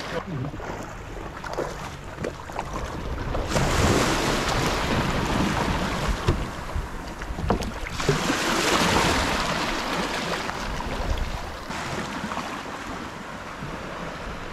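Shallow seawater sloshing and splashing around a kayak hull and wading legs as the kayak is walked out through the shallows, with wind buffeting the microphone.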